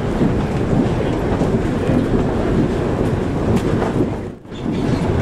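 Shonan Monorail suspended car running at speed, heard from inside the cabin: the steady rumble of its rubber tyres in the overhead track beam. The noise dips away briefly a little over four seconds in.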